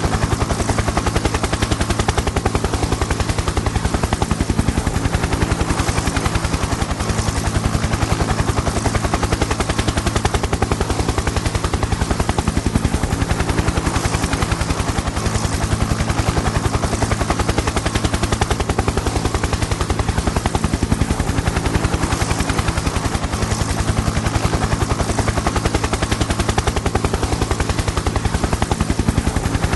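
Helicopter in flight: a fast, steady chop of rotor blades over a steady engine drone, loud and unchanging.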